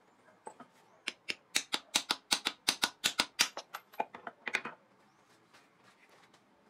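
A hammer taps the spine of a leaf-spring steel knife about twenty times in quick succession, some five strikes a second, driving the edge through a steel nail on a steel block. The sharp metallic clinks stop just before five seconds in, once the nail is cut.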